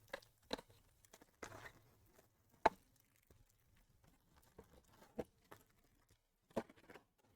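Faint, scattered rustles and clicks of trading-card packs and cards being handled and opened. The sharpest click is a little under 3 seconds in.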